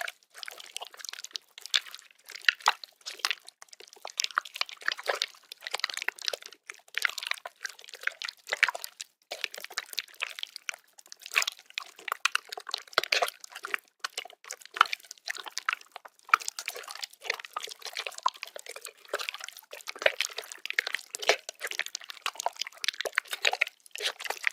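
Toy slime being squeezed and stretched by hand: a run of irregular wet squelches, clicks and small pops.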